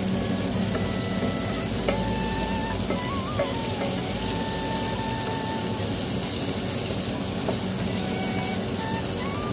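Boiled eggs and baby potatoes sizzling in oil in a nonstick kadai as a wooden spatula stirs them, with a steady frying hiss and a few light knocks of the spatula against the pan. A faint tune plays in the background.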